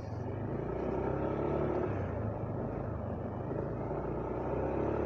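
Yamaha Aerox V2 scooter's single-cylinder engine running steadily while riding, with road noise underneath and a small change in engine pitch about two seconds in.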